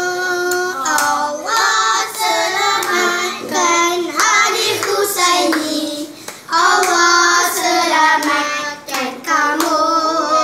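A group of children and women singing a birthday song in Malay together, with a few scattered hand claps.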